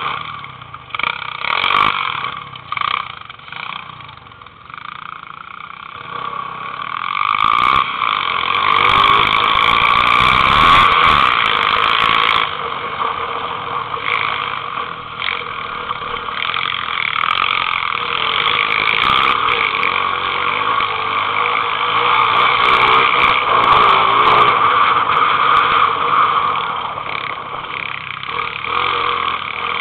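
Pit bike's small single-cylinder engine running under throttle while riding over gravel. It is uneven and quieter at first, then about seven seconds in it revs up and holds high and steady, with a few sharp knocks from the rough ground.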